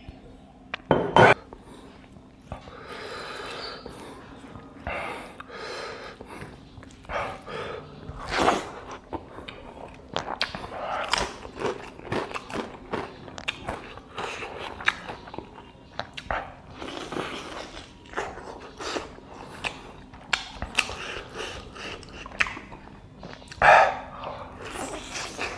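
Close-miked eating sounds of chicken curry with rice, eaten by hand: chewing and biting, with many short wet clicks and the fingers working the rice on the plate. A loud clunk comes about a second in, and a loud bite near the end as a chicken leg is bitten into.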